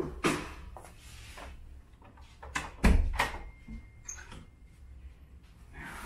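A series of knocks and thumps from a large cardboard bike box being handled and an apartment door being shut. The loudest is a heavy thump about three seconds in, followed by a sharp click.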